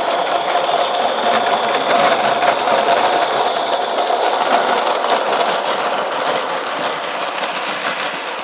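Gas-fired 45 mm gauge live-steam Merlin Monarch 0-4-0 saddle tank locomotive running under steam, with fast, even exhaust beats over a steady hiss. It passes close by and fades as it pulls away near the end.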